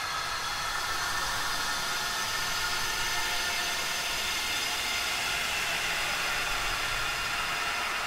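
Spooky 'wails of the dead' sound effect: a dense, steady hissing wash with many faint, slowly drifting high moaning tones layered into it.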